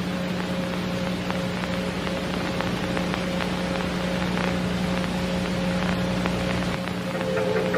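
Steady electrical hum under constant crackling static hiss.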